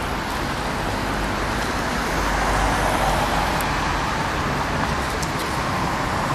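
Steady road traffic noise from cars driving along a wide city avenue, swelling a little about halfway through as a vehicle passes.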